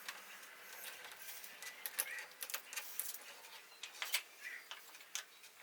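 Faint hands-on handling noise: scattered light clicks and rustles, some sharper than others, with a few short faint chirps. These are the sounds of an LED light strip being handled and stuck in place.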